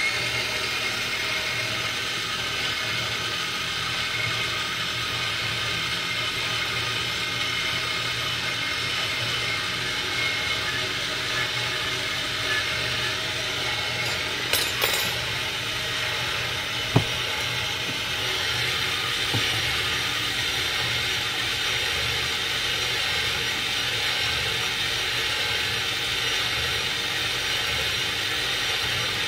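Pampered Chef Twist & Chop electric chopper's motor running steadily, its blade whipping heavy cream into whipped cream. A couple of brief knocks come about midway through.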